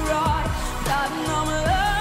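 A teenage girl singing a pop song solo over a backing track, with a long held note near the end that wavers with vibrato.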